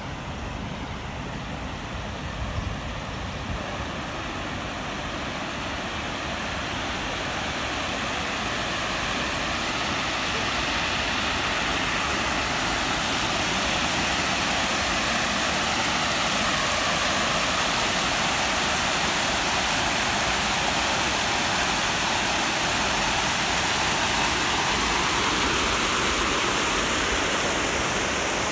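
River water pouring over a low concrete weir: a steady rushing that grows louder over the first ten seconds or so, then holds.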